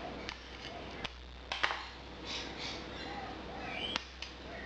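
Handling noises at a workbench: a handful of light clicks and knocks, spaced irregularly, with brief rustles between them, as the knife's handle parts are handled.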